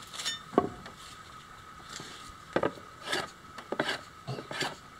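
Wooden axe handle being shaved down by hand with an edged tool, so that it will fit the axe head: a string of short scraping cuts with pauses between them.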